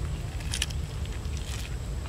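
Crisp snaps and crackles of charred roast chicken being torn apart by hand, a few sharp ones about half a second in and again around a second and a half. Under them runs a steady low rumble of wind on the microphone.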